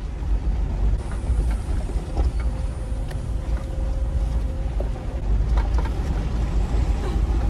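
A 4x4 driving slowly over a rough, rutted dirt track: a steady low rumble from the engine and tyres, with a few faint knocks as it rides over stones and ruts.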